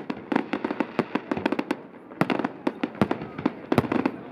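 Fireworks display: aerial shells and low-level effects going off in a dense, irregular run of sharp bangs, several a second, easing briefly about halfway through.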